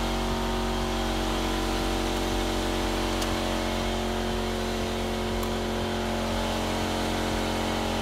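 Air compressor running steadily, a continuous mechanical hum made of several steady tones.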